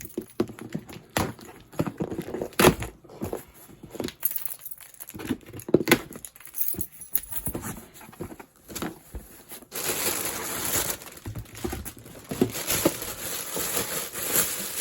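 Unboxing handling of a folding mini washing machine: plastic parts and packaging knocking and clattering, then from about ten seconds in a steady crinkling of plastic wrapping.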